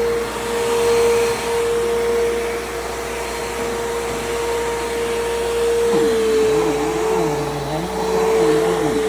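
Bissell PowerGroom bagless upright vacuum cleaner running with a steady motor whine. About six seconds in, a lower tone joins and wavers up and down about once a second.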